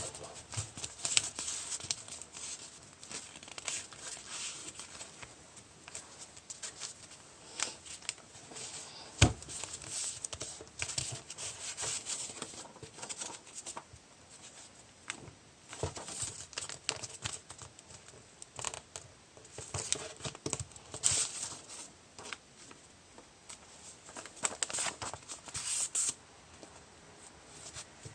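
A sheet of paper being handled, folded and creased by hand: irregular crinkling and rustling in short bursts, with one sharp tap about nine seconds in.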